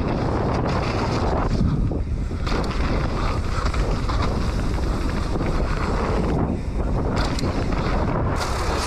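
Wind buffeting an action camera's microphone as a mountain bike rolls fast over a muddy dirt trail, a steady rumble with tyre noise and a few short knocks from bumps.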